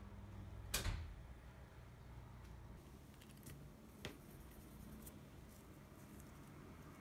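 Faint handling sounds of craft work on a tabletop over low room tone: a sharp knock about a second in and a lighter tick around four seconds, as a marker and hands work a strip of cardboard on paper.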